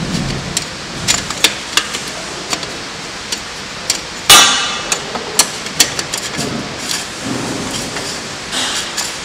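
Stainless steel measuring cups and their holders being fitted by hand into the metal cup disc of a packing machine's volumetric cup filler: scattered sharp clicks and knocks, with one loud metallic clang about four seconds in that rings briefly.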